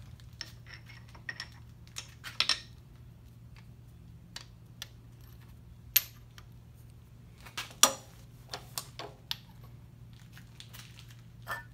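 Metal parts clinking and knocking as a hex-stock jig is handled and set into a Kurt milling-machine vise, in scattered sharp clicks, the loudest about six and eight seconds in, over a steady low hum.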